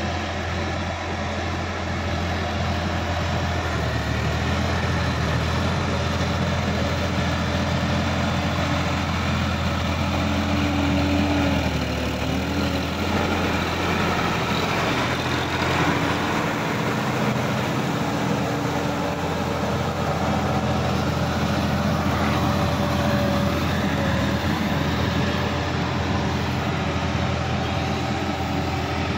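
Sonalika DI-50 RX tractor's diesel engine running steadily under load as it drives through a flooded, muddy paddy field. It is a little louder as the tractor comes close around the middle.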